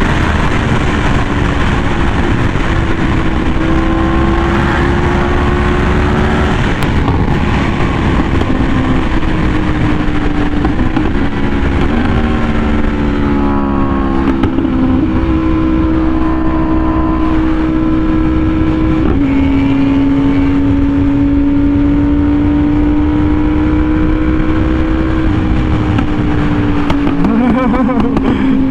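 Yamaha R1M's crossplane inline-four through an SC Project exhaust, running steadily at speed, its pitch stepping to new notes a few times, with heavy wind rumble on the microphone underneath.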